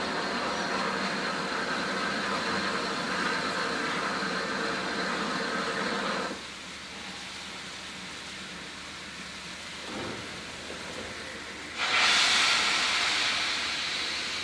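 Rebuilt Bulleid Battle of Britain class 4-6-2 steam locomotive No. 34053 hissing steam: a steady hiss that drops away about six seconds in, then a much louder, sharper hiss of escaping steam that starts suddenly near the end.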